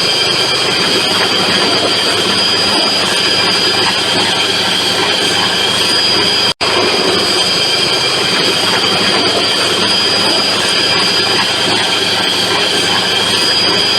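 Large metal-working lathe running and cutting steel: steady machining noise with a constant high whine, broken once by a very short dropout about six and a half seconds in.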